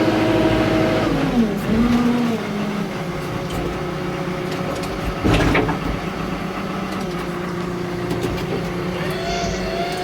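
Escort backhoe loader's diesel engine running; the revs drop about a second in and settle to a steady lower speed, with a short burst of noise about five seconds in, and the revs start to climb again near the end.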